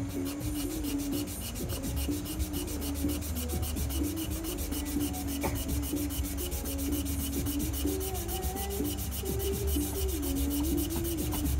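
Wooden knife handle being hand-sanded, the abrasive rubbing over the wood in rapid, even back-and-forth strokes.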